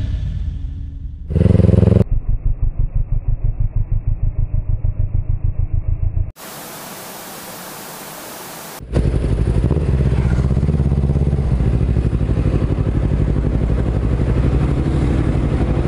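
Kawasaki Ninja 250 motorcycle engine running in several spliced clips: first a stretch with an even throbbing beat, then a few seconds of steady hiss a little past the middle, then the engine running steadily again.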